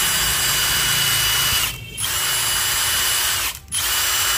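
Milwaukee M18 FUEL 2861-20 cordless brushless impact wrench spinning with the trigger pulled, a steady high motor whine with no hammering. It stops briefly about one and a half seconds in and again about three and a half seconds in, spinning back up each time.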